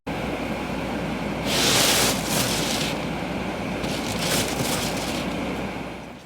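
Blizzard wind buffeting the microphone: a steady rushing with a low rumble, swelling in gusts about a second and a half in and again around four seconds.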